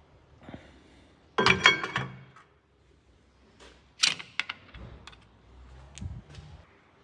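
Metal parts and tools clattering and clinking in a steel parts tray: a loud ringing rattle about one and a half seconds in, then sharp clicks around four seconds as a hand picks through the bolts and sockets, and a last knock near the end.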